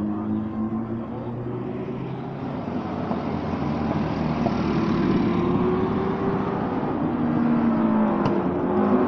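Racing sidecar engines running hard as the outfits pass on the circuit, several engine notes overlapping and rising and falling in pitch with the revs. The sound grows louder toward the end as another machine approaches.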